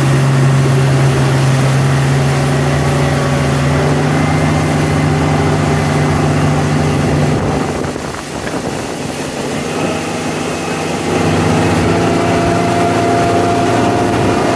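Motorboat engine running while towing a tube, with water and wind noise. About halfway through the engine eases off and quietens, then picks up again a few seconds later at a higher pitch.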